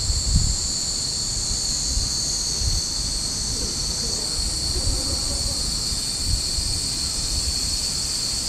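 A steady, high-pitched drone of cicadas, with wind buffeting the microphone now and then.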